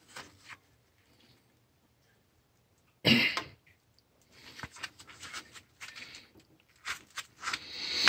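Nut driver working the quarter-inch screws on a VXT-120 boiler water feeder valve's metal bracket: scattered small metal clicks and scrapes. One short, louder rush of noise comes about three seconds in.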